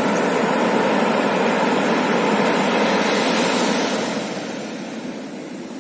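Steady rushing noise of sea surf and wind at an open beach, easing off after about four seconds.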